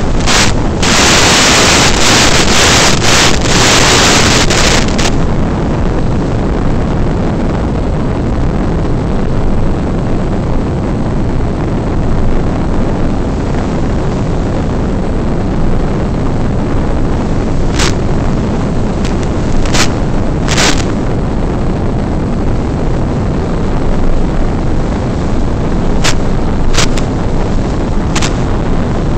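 Steady rushing noise on the analog FPV video link's audio while the Carbon Cub S2 RC plane is in flight. Loud radio static hiss covers the first five seconds while the video signal breaks up, and a few short static crackles come later.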